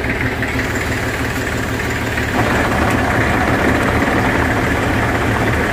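Massey Ferguson tractor's diesel engine idling steadily, close by.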